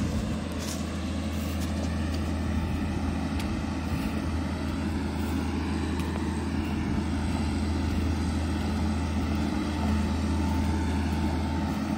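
Engine running steadily with a low, even hum that holds level throughout.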